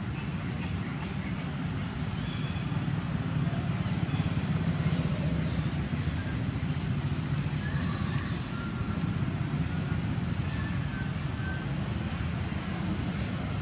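A high-pitched insect drone that breaks off twice and starts again, over a low background rumble, with a few faint chirps.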